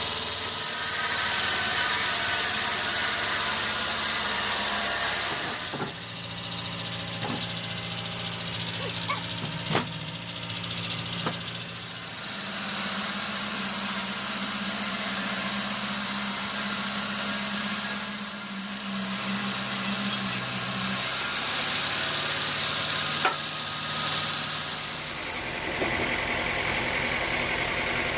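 Sawmill running, its engine humming steadily under the loud hiss of the blade cutting through a redwood log. The cutting noise swells and eases in stretches of several seconds, and a few sharp knocks come about a third of the way in and again later.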